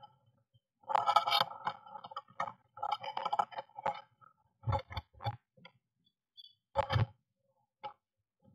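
Blue tit moving about inside a wooden nest box: rustling and scrabbling in the moss and fur nesting material, with claws scraping the wood. Several sharp knocks and thuds follow about halfway through and again near the end as the bird hops and flutters about the box.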